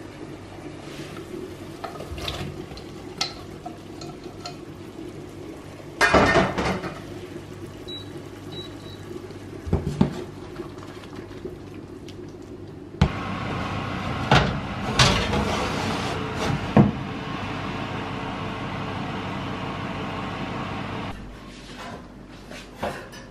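Kitchen cooking sounds: pots, pans and utensils clinking and knocking over a steady hum. There is a loud clatter about six seconds in, and a steady hiss from about halfway through that stops shortly before the end.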